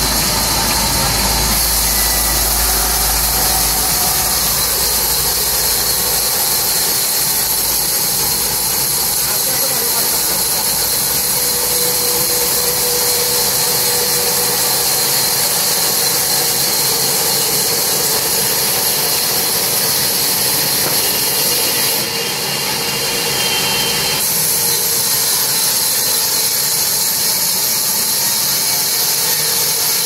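Sawmill saw running and cutting through a log as it is fed past the blade on a hand-pushed carriage. It makes a loud, steady machine noise with a strong hiss.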